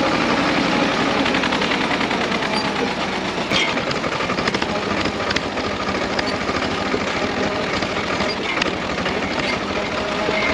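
Tractor's diesel engine running with a fast, steady clatter while it drives down a rough mountain track, with a few sharp knocks and rattles from the jolting.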